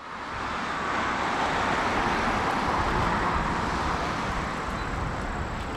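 Distant jet noise from a Boeing 777-200ER's twin GE90 turbofans at takeoff power during the start of the takeoff roll: a steady rushing sound with a low rumble underneath, rising quickly as it comes in at the start.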